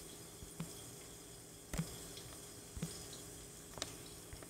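Vegetables cooking faintly in lidded skillets on the stove: a low steady hiss with a soft click or pop about once a second.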